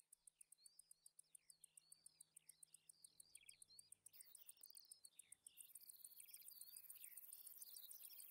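Faint insect stridulation, likely a bush-cricket or grasshopper, in a high, rapid, evenly pulsed buzz that grows louder about two-thirds of the way in. A bird sings a run of short twittering, sliding notes over it.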